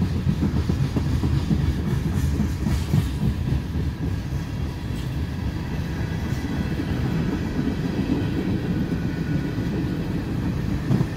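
Tank cars of a freight train rolling past on the rails, a steady low rumble.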